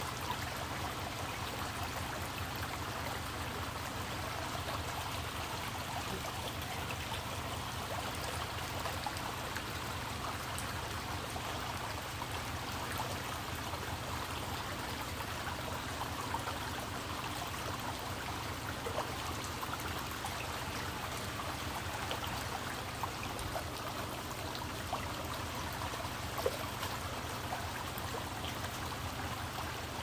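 Small rocky creek babbling steadily as shallow water runs over and between stones.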